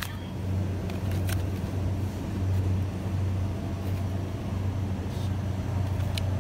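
A steady low hum of store machinery, with a few faint light clicks of plastic packaging being handled.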